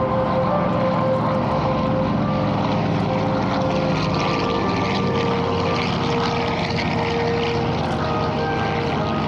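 Piston-engined WWII warbirds flying past, their propeller engines droning steadily and loudly, with several engine tones that shift slightly in pitch.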